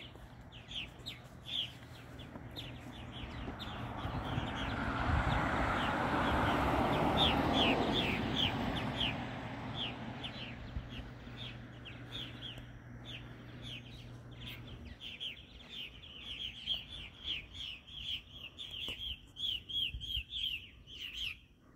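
Flock of purple martins calling overhead: a steady stream of short, high, downward-sliding chirps, thickest near the end. In the first half a broad rushing noise swells up and fades away.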